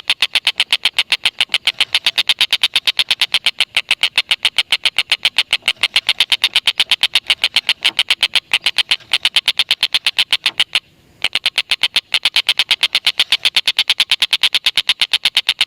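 Stork-billed kingfisher (tengkek buto) giving a long, unbroken 'ngekek' chatter: a fast run of sharp, high notes, about seven a second. It pauses briefly about eleven seconds in, then carries on at the same pace.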